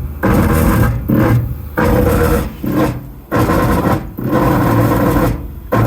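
Creality K1 Max Z-axis stepper motor grinding as it runs in repeated short moves, each about half a second to a second long, with a steady pitched hum and brief stops between them. The grinding began after a new mainboard was installed and stays with the belts off, so the owner traces it to the motor itself.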